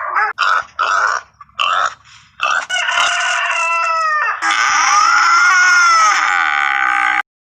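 Chickens: a run of short clucks, then a rooster crowing, the last crow long and rising then falling before it cuts off suddenly about seven seconds in.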